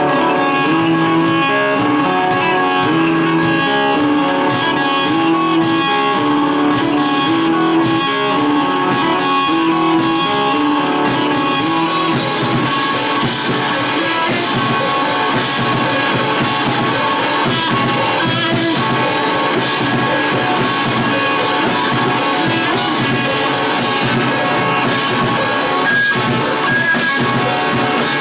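Live rock band playing: a guitar picks a repeating riff alone, then the drum kit with cymbals comes in about four seconds in and the full band plays on.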